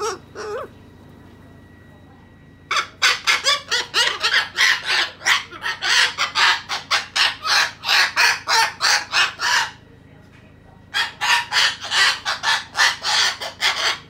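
White cockatoo calling in fast runs of short, harsh squawks, about three or four a second: a long run and then, after a short pause, a second one.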